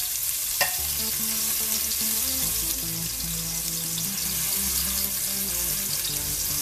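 Garlic cloves sizzling in hot oil in an aluminium pressure cooker while a silicone spatula stirs them, browning the garlic. There is a sharp tap of the spatula on the pan about half a second in.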